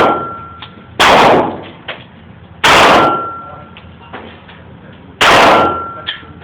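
Taurus Millennium Pro .45 ACP pistol fired three times at an uneven pace, shots about one and a half to two and a half seconds apart. Each loud report dies away over about half a second.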